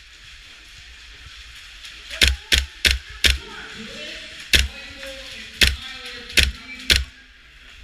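Airsoft rifle firing semi-automatic shots, each a sharp crack: a quick string of four about two seconds in, then four more single shots spaced roughly a second apart. Faint distant voices can be heard between the shots.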